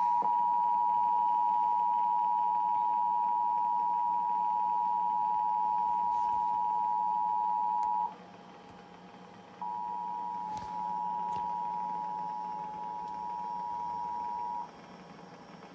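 Emergency alert attention signal: a steady two-tone alarm of two close pitches sounding together, held for about eight seconds, breaking off, then starting again a little quieter for about five seconds, over a faint steady hum.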